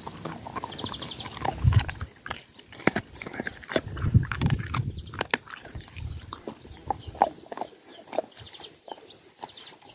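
A large dog gnawing and chewing on a bone, with irregular sharp crunches and wet mouth smacks and a few heavier low thuds.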